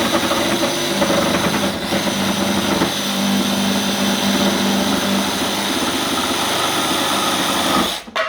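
DeWalt 20V cordless jigsaw running and sawing a curve through a butcher block offcut, a steady buzzing cut that stops suddenly near the end, followed by a few clicks.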